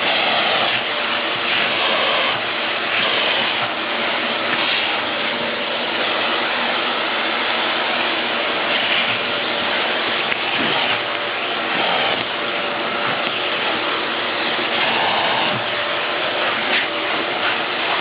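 Vacuum cleaner running steadily, its noise shifting slightly from moment to moment as the nozzle is moved, as when a cat is being vacuumed.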